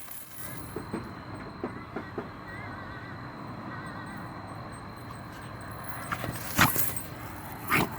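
A dog sneezing twice, two short sharp blasts, the first about six and a half seconds in and the second near the end, over a steady low background rumble.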